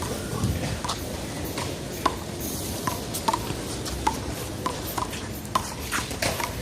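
Rubber handball smacking again and again against hands, the wall and the pavement during a one-wall handball rally: a quick run of sharp knocks, each with a short ring.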